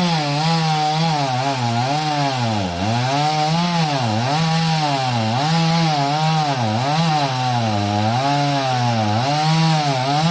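Chainsaw cutting mango wood, its engine pitch sagging under load and picking up again about every second and a bit as the chain bites into the cut.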